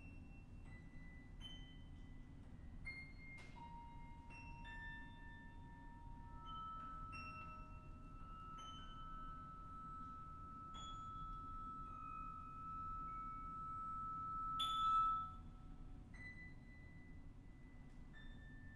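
Quiet free improvisation on voice, piano, kannel and cello: sparse, high, single plucked or struck notes ringing out one after another. A long held high tone swells and then breaks off about 15 seconds in.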